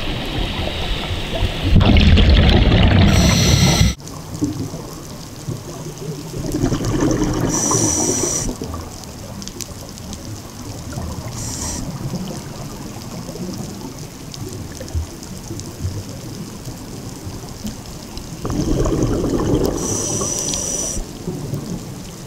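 Scuba diver's breathing picked up underwater: exhaled bubbles rushing past in bursts several seconds apart, the loudest about two seconds in, with short hisses from the regulator, over a steady underwater hiss.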